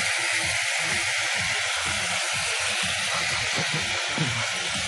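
Chicken fillets sizzling in a hot frying pan just after balsamic vinegar has been poured in: a steady hiss as the vinegar boils off into steam on high heat.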